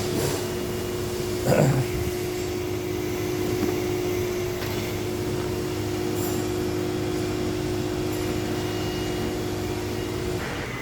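A steady mechanical hum with a constant tone that cuts off near the end, and a brief clatter about one and a half seconds in.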